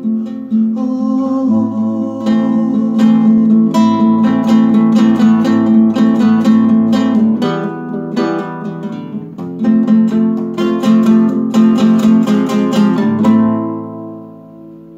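Nylon-string classical guitar played with rapid strumming and plucked notes. Near the end it stops on a final strummed chord that is left to ring and fade.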